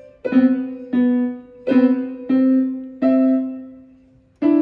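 Yamaha portable electronic keyboard played with a piano sound: about six notes struck slowly one at a time, each ringing and fading before the next.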